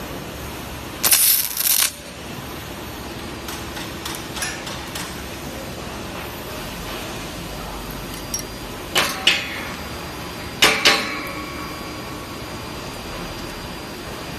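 Stud welding gun firing a shear stud through its ceramic ferrule onto a steel plate: a loud sizzling burst just under a second long, about a second in. Later come two pairs of sharp metallic clinks with a short ring, around nine and eleven seconds in.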